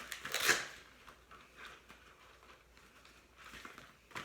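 Small scraping and clicking of a die-cast toy car's drilled-out metal body and base being pried apart by hand: a short scrape about half a second in, then faint scattered clicks, the sharpest near the end.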